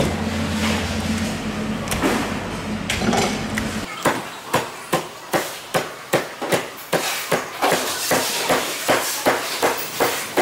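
A large knife chopping a whole fish crosswise into steaks on a cutting board: from about four seconds in, a regular run of sharp chops, about two and a half a second, each blade stroke striking the board. Before that, a low steady hum with a few scattered knocks.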